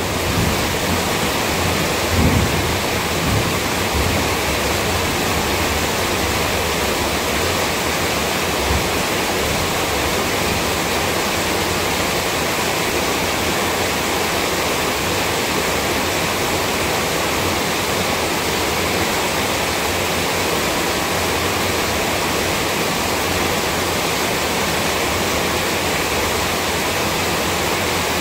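Heavy rain pouring down steadily, a dense unbroken hiss, with a low rumble in the first few seconds.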